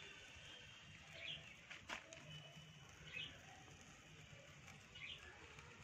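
Faint short chirping calls, one about every two seconds, over a low background hum, with a single sharp click about two seconds in.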